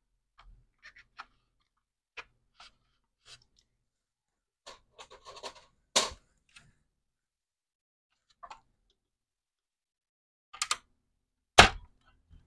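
Scattered small clicks and scrapes of wire leads being handled and spade connectors worked off their terminals on a circuit board. There is a sharper click about six seconds in and another near the end.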